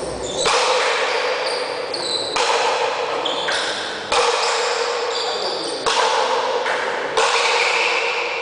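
Pelota paleta rally: the ball struck by wooden paddles and hitting the frontón wall about every one and a half to two seconds. Each hit is a sharp crack followed by a ringing hiss in the hall.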